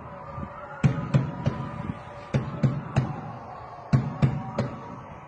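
A hand knocking hard on a closed door in groups of three raps, three groups about a second and a half apart, over steady background music.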